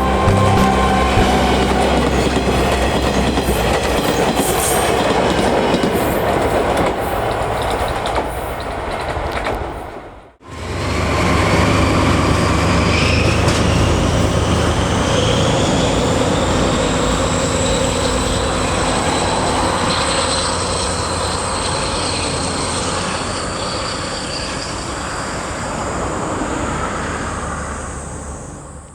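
Train of a DE10 diesel locomotive and 50-series passenger coaches running on the rails, with wheels clattering over the track. There is a short break about ten seconds in. After it, a whine rises in pitch over several seconds as the train gathers speed, then the sound fades out at the end.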